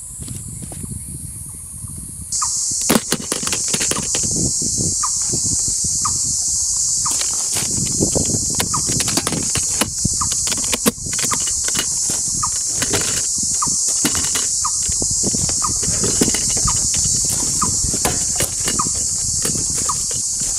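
A dense, steady high-pitched insect chorus, with scattered knocks and clicks throughout and a short chirp repeating about once a second.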